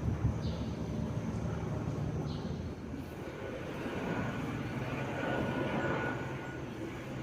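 Steady low engine rumble with a noisy hiss over it, like motor traffic or a motor running.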